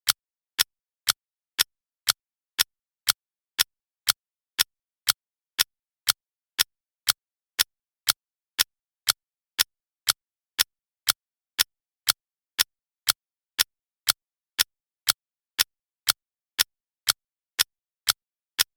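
Countdown timer ticking: sharp, even ticks, two a second, with silence between them.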